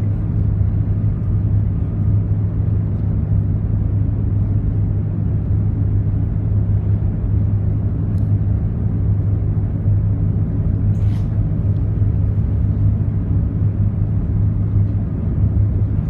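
Steady low hum and rumble of a container ship's machinery while the ship is being manoeuvred off its berth, with a couple of faint clicks about halfway through.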